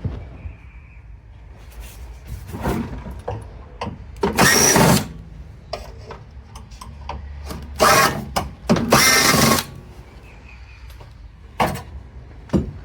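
Power drill run in three short bursts of about a second or less, backing out the screws that hold the top section of a water heater, with scattered clicks and knocks in between.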